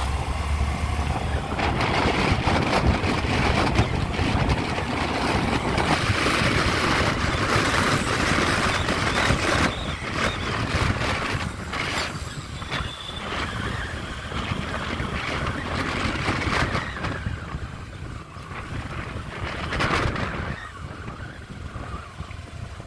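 Wind buffeting the microphone over the engine and road noise of a moving motor scooter, loudest in the first half and easing off after about ten seconds.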